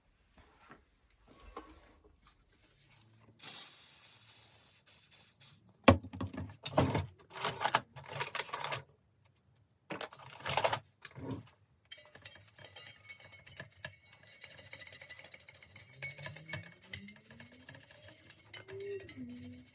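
Metal bicycle hub parts being handled on a workbench: scattered knocks and clinks, then softer rubbing and handling noise.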